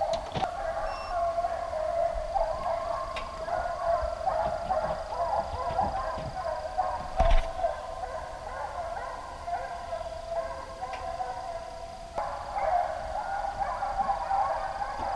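A pack of deer hounds baying together while running a deer, many voices overlapping in a continuous chorus, with a sharp knock about seven seconds in.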